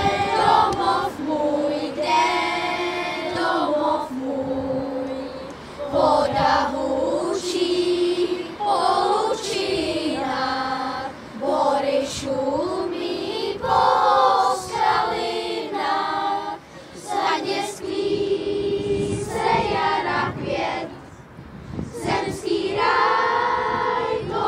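Children's choir singing together under a conductor, in sung phrases with short breaks between them.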